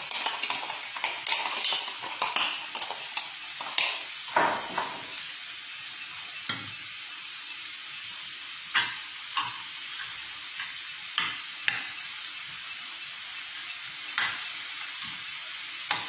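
Sliced onions frying in coconut oil in a pan, a steady sizzle, with a metal spoon scraping and knocking against the pan as the seeni sambol mixture is stirred after its sugar has gone in. The scrapes come thick and fast for the first few seconds, then only now and then.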